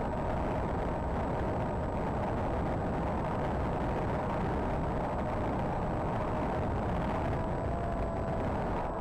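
Predator Z-51 RC plane in flight heard from its onboard camera: the motor and propeller give a steady drone and whine that wavers slightly in pitch, under a constant rush of wind on the microphone.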